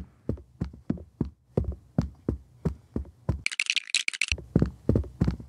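A run of short, soft knocks, about two to three a second and unevenly spaced, with a brief high rattling hiss a little past the middle.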